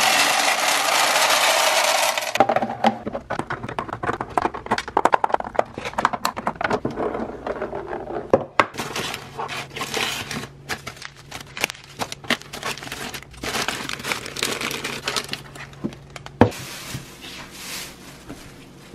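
Dry penne pasta poured into a glass canister: a loud rattling rush for about two seconds. It is followed by crinkling plastic and paper packaging and items being handled, with one sharp knock near the end.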